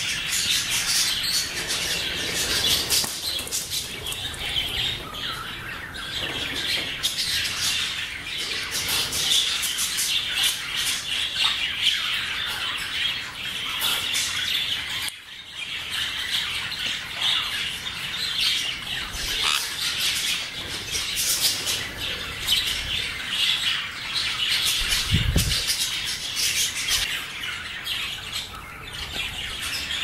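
A flock of English budgerigars chattering and squawking, a dense unbroken mix of short chirps and warbling calls, with a brief dip about fifteen seconds in.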